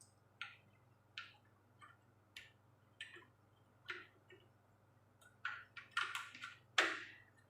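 Clicks and scrapes of a washing machine's plastic door handle being worked loose from its housing: single clicks about once a second, then a louder run of clicks and scraping in the last two seconds, the loudest near the end.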